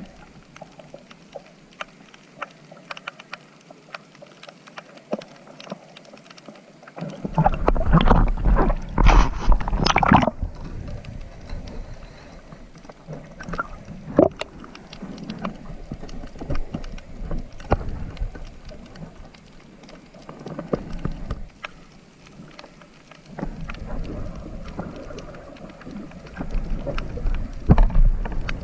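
Water sloshing and splashing close to the microphone, with scattered clicks and two spells of heavy low rumble, one near a quarter of the way in and one near the end.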